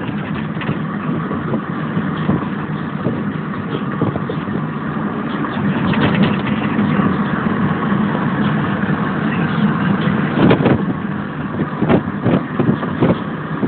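Car interior noise on the move: a steady rumble of engine and road, with a few short knocks and rustles in the last few seconds.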